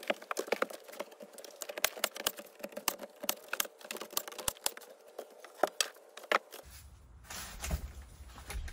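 A quick, irregular run of sharp clicks and light knocks, several a second, from wooden wall boards being handled and fitted into place. The knocking stops about two-thirds of the way through.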